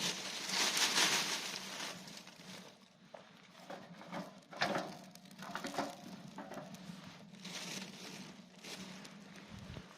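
Dry tinder crunching and crumpling as it is handled, in irregular bursts, loudest about a second in.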